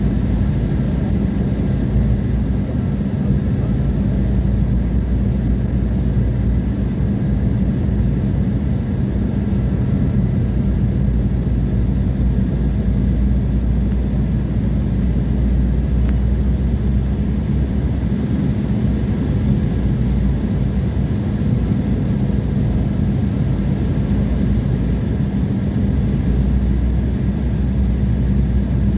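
Steady cabin noise of a twin-engine regional jet on descent: turbofan engine drone and rushing airflow, heaviest in a low hum, with a few faint steady tones above it.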